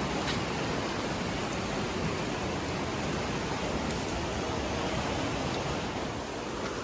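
Steady rush of falling water from a small jungle waterfall and stream, easing slightly about six seconds in.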